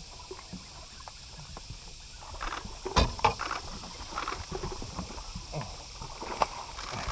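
A bass being hooked and fought from the front deck of a bass boat: a sharp thump about three seconds in, then scattered knocks and clicks as the fish is worked to the boat.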